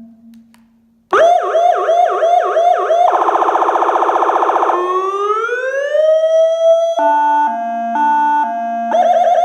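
Electronic vehicle siren cycling through its tones. After a near-silent second it starts with quick repeated sweeps of about four a second, switches to a very rapid warble, then a slow rising wail, then a stepped alternation between two pitches about twice a second, and a fast warble again near the end.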